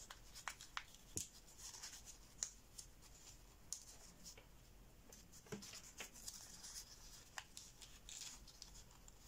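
Faint, scattered crackles and rustles of 80 g/m² printer paper being pinched and creased by hand into zigzag pleats.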